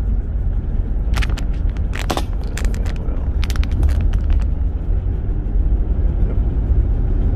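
Steady low road rumble inside a moving car's cabin, with a scatter of sharp clicks or rattles between about one and four and a half seconds in.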